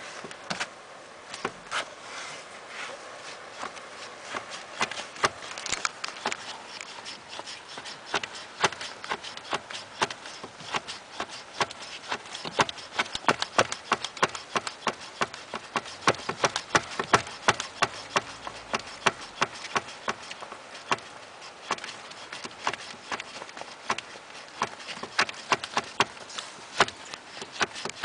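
Flip-flops tapping and slapping against a car's pedals as they are pumped: a rapid, irregular run of sharp clicks, several a second, busiest in the middle.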